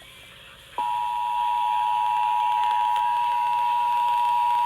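Emergency Alert System attention tone: after a short silent gap it comes back about a second in and holds as one steady, unbroken tone.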